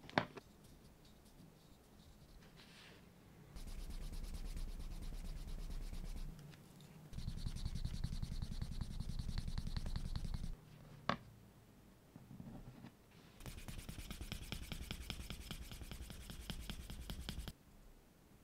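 Wooden edge slicker rubbed rapidly back and forth along the edge of a piece of black leather, burnishing the edge. It comes in three spells of a few seconds each, with a single sharp click between the second and third.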